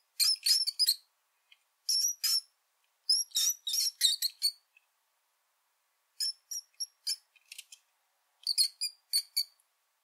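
Mouse squeaking: short, high-pitched squeaks in five quick clusters of two to six each, with pauses of a second or so between them.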